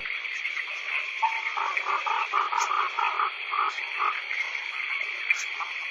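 Night jungle ambience: a steady high-pitched insect chorus, with a frog calling in runs of short croaks, roughly four a second, that pause about four seconds in and start again near the end.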